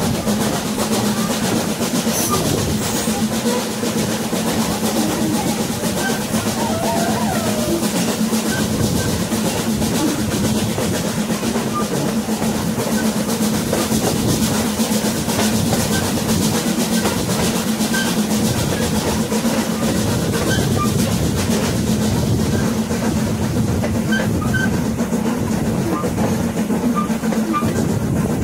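Steady rumble and rattle of a passenger train rolling along the track, heard from aboard the coach, with faint passenger voices in the mix.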